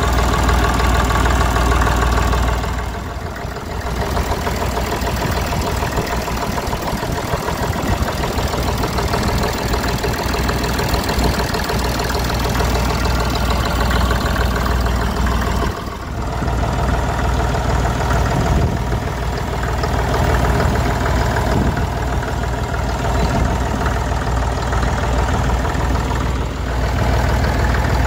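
Massey Ferguson 35 diesel tractor engine idling steadily, heard close up, briefly quieter twice.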